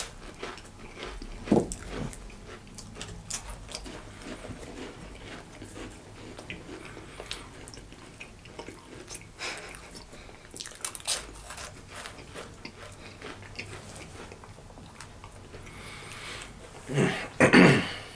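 Dry saltine crackers being bitten and chewed: scattered small crisp crunches and clicks throughout, with a brief louder noise near the end.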